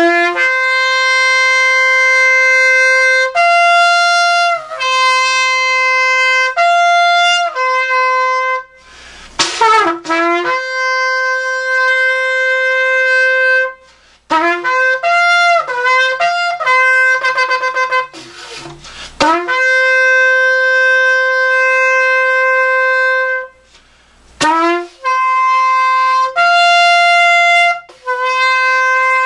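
A long 42-inch horn shofar with a newly made mouthpiece, blown in loud held notes that step up and down between a few pitches. Quick runs of notes warble up and down between the held notes, and there are short breaks for breath between the blasts.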